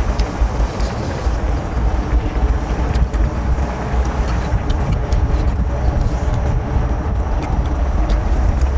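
Steady low rumble of wind buffeting the microphone, with faint scattered clicks over it.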